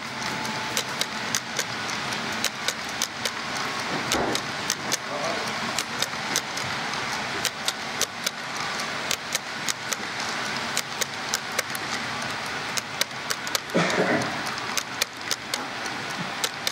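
Model freight train rolling past, its hopper wagons' wheels clicking sharply over the rail joints several times a second, over a steady rolling hiss.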